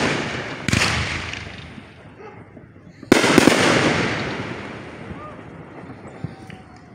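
Fireworks going off: a booming burst just under a second in and a louder one about three seconds in with a quick run of cracks, each rolling away in a long echoing rumble.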